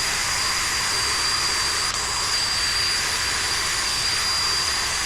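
Steady, loud hiss of a pressurised jet with a thin high whistle running through it, starting and cutting off abruptly.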